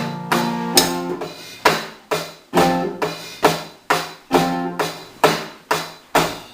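Live music: a guitar strummed in chords on a steady beat, about two strokes a second, each ringing out before the next. The playing stops near the end.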